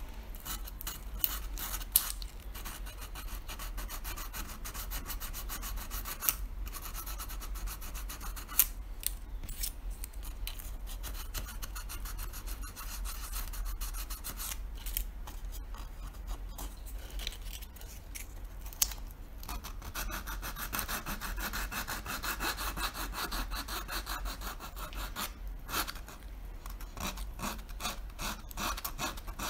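Small piece of sandpaper rubbed quickly back and forth over a 3D-printed plastic mask: a dense run of rapid scratchy strokes, with a few sharp clicks.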